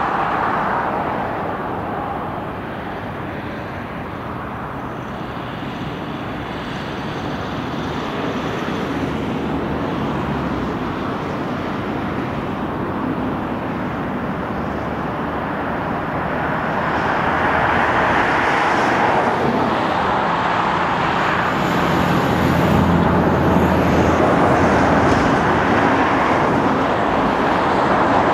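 Airbus A330-243 airliner with Rolls-Royce Trent 700 engines on final approach, gear down. A steady jet rumble grows louder as the plane comes in low overhead, and a faint high engine whine comes in about two-thirds of the way through.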